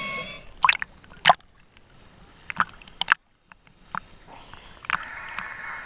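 Seawater sloshing and splashing against an action camera's waterproof housing at the surface, with a string of sharp splashes and knocks. The sound cuts out briefly a little after three seconds.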